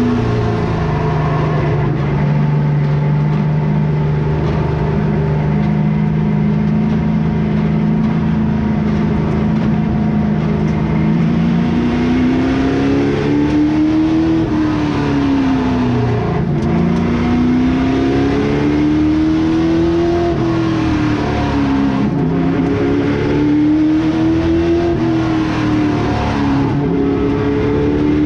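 Outlaw late model race car's V8 engine heard from inside the cockpit while lapping. Its pitch holds steady for the first dozen seconds, then swells up and drops back every five or six seconds as the throttle goes on and off.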